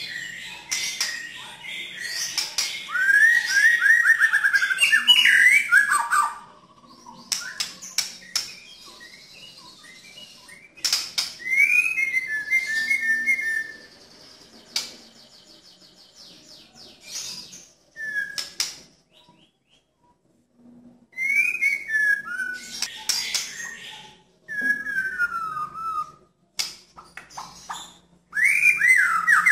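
White-rumped shama singing in its loud 'nembak' style: bursts of clear whistled phrases and rapid rising and falling trills mixed with rough, harsh notes, in several bursts with short pauses between them.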